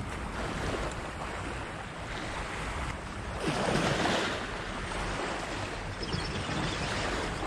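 Small waves washing on the shore, with wind rumbling on the microphone; one wash swells louder about three and a half seconds in.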